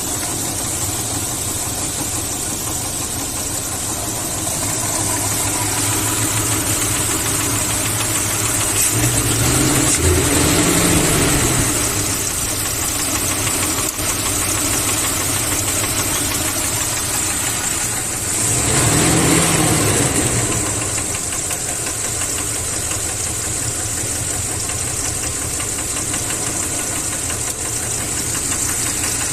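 Car engine idling with a small knock, revved up and let back down twice, about ten and nineteen seconds in. The knock comes from an engine that also burns oil and, on diagnosis, needs a rebuild.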